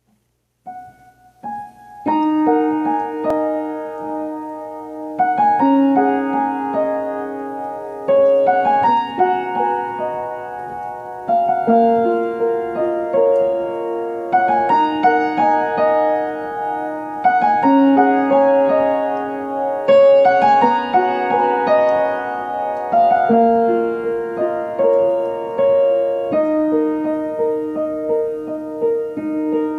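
Piano playing a melody over sustained chords, starting with a few notes about a second in and carrying on without a break.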